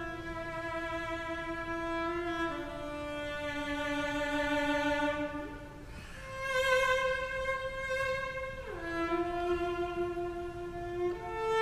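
Solo cello, bowed, playing a slow melody of long held notes, with a slide up into a note a little past halfway and a slide down between notes about three-quarters of the way through.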